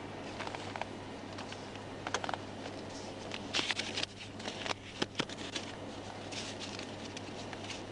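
Steady low hum inside a patrol car's cabin, with scattered clicks and short rustles of handling things, busiest from about two to five seconds in.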